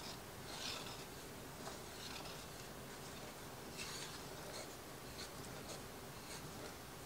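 Spatula stirring thick cheese sauce in an enamelled pot: faint, soft scraping swishes against the pot's bottom and sides, one every second or so.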